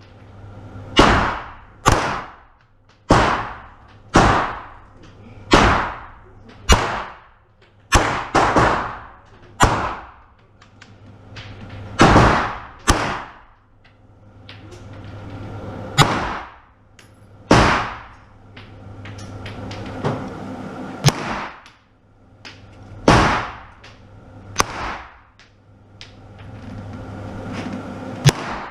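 Glock 17 9mm pistol firing a string of single shots, each with a ringing echo tail; about one shot a second in the first half, then more widely spaced shots, some in quick pairs.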